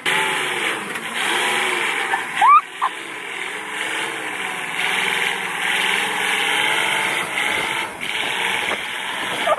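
Engine of an old flatbed truck heavily laden with firewood, running under load, its pitch rising and falling with the throttle. A short rising sound about two and a half seconds in is the loudest moment.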